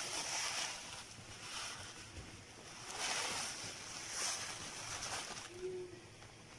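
Coarse salt pouring from a plastic bag onto a fish in a glass baking dish: grains hissing and the bag crinkling, in several rushes, as the fish is packed in a salt crust.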